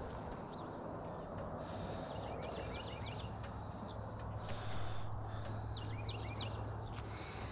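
A bird calling in short quick runs of four or five chirps, repeated twice, over a steady low hum and background noise.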